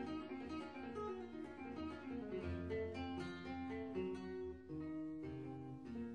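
Background music: an acoustic guitar playing a melody of plucked notes over a bass line.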